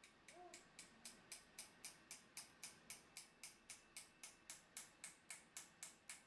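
Small engraver's hammer tapping a steel chisel as it cuts an engraving into a Japanese sword blade: light, quick taps at an even rhythm of about four a second.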